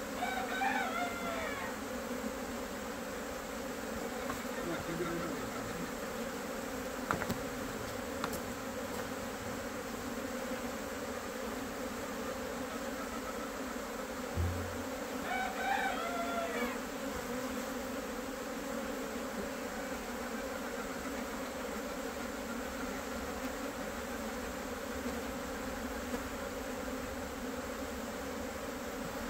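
A swarm of Korean native honeybees (Asian honeybees) pours out of the hive, making a steady, dense buzzing hum: the colony is swarming. A bird calls twice over it, once near the start and again about halfway.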